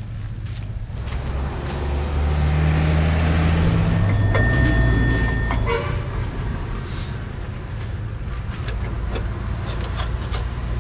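A motor vehicle's engine running loud as it passes for a few seconds, with a short, steady high horn-like tone about four seconds in. Light clicks and knocks of objects being handled are scattered throughout.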